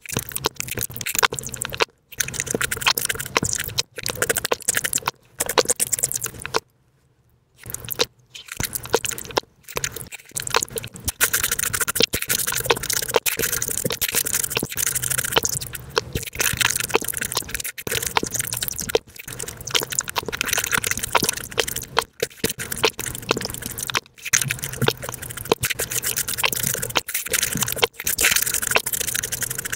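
Sped-up eating sounds of juicy fruit, mango and watermelon being bitten, chewed and slurped, coming as a dense, rapid run of wet crackles and clicks. There is a brief silent break about seven seconds in.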